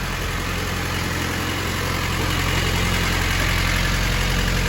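Restored Jeep's engine idling steadily on one of its first runs after the restoration, growing a little louder about two seconds in.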